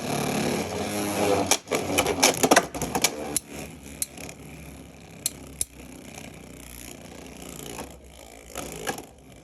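Two Beyblade X spinning tops launched into a plastic stadium, clashing in a quick run of sharp clacks over the first three seconds, then spinning and rattling across the stadium floor with a few scattered clicks.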